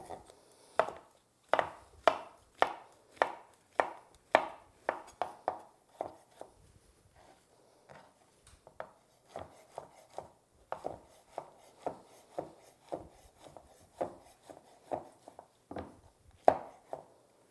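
Chef's knife dicing crimini mushrooms on a wooden cutting board: even knife strokes, about two a second, each knocking through onto the board, with a pause of about two seconds midway.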